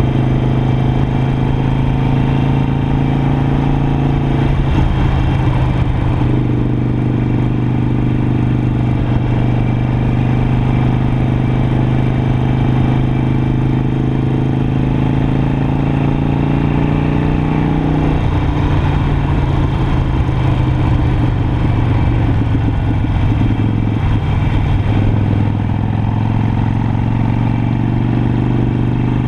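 Harley-Davidson Iron 883's air-cooled 883 cc V-twin engine running steadily under way on the road, its note shifting a little about eighteen seconds in and again about twenty-four seconds in.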